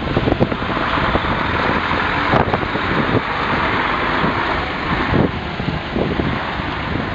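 Firefighting helicopter running, its rotor and engine noise mixed with heavy wind buffeting on the microphone.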